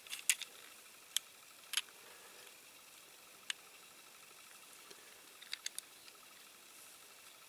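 Faint, scattered sharp clicks and taps of small model-car parts being handled and pressed together, with a quick run of three clicks about five and a half seconds in, over quiet room tone.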